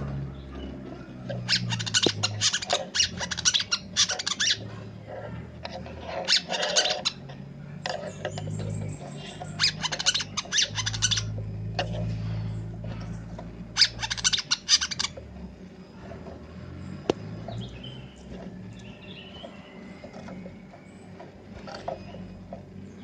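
Brown-throated sunbird (kolibri kelapa) singing in rapid, high, twittering bursts, several in a row with short gaps, its song packed with learned fills of other birds; the song goes fainter and sparser after about 15 seconds. A steady low hum runs underneath.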